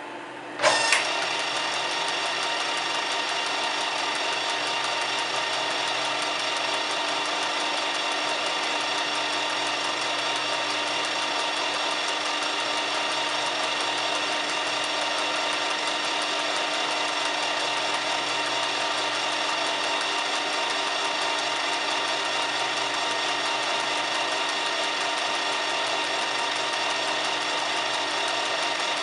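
Metal lathe motor starting under a second in, then running steadily with a constant whine from its drive while a boring bar takes a light finishing cut through the white-metal big-end bearing of a connecting rod on the faceplate. The cut runs smoothly, with no chatter.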